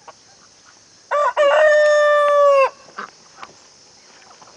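Rooster crowing once, about a second in: a short rising note, then a long held note of about a second and a half that drops away at the end.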